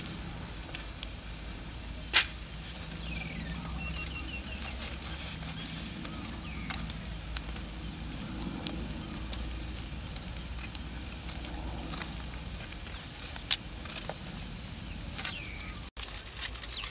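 Metal tongs turning food in a bed of glowing charcoal embers: a few sharp clicks and clinks over a steady low rumble.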